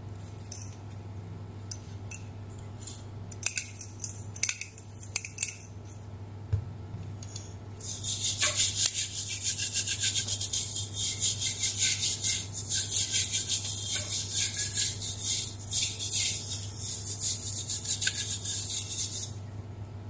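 Back-and-forth scrubbing on the surface of a printed circuit board, starting about eight seconds in and lasting around eleven seconds, after a few light handling clicks. A steady low hum runs underneath.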